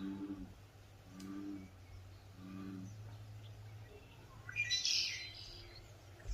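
A low humming hoot repeated three times, about one and a quarter seconds apart, then a bird's chirping, the loudest sound, about four and a half seconds in.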